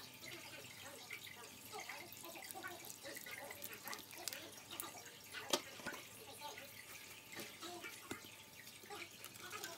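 Water poured from a plastic bottle onto the soil of a small potted cutting, trickling and dripping. There is one sharp tap a little over halfway through.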